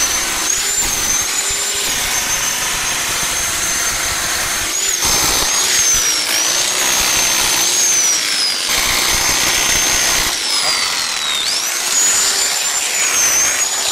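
Electric chipping hammer chiselling out the masonry around a basement window, hammering almost without pause. A high motor whine sags under load and picks up again several times.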